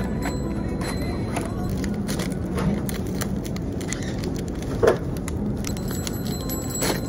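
Packaging being opened by hand: a paper wafer wrapper crinkling and rustling as it is torn and unfolded, in irregular crackles with one louder rustle about five seconds in.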